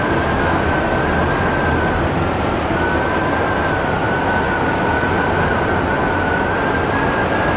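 Strong wind of about 80 km/h blowing hard: a loud, steady rush with a high whistle that wavers slightly in pitch throughout.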